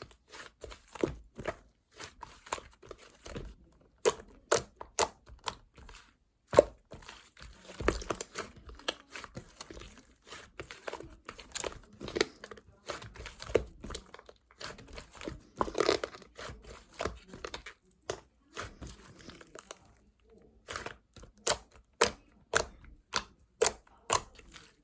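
Close-up, irregular crinkling and crunching: many short sharp crackles at an uneven pace, with a denser, louder patch about two-thirds of the way through.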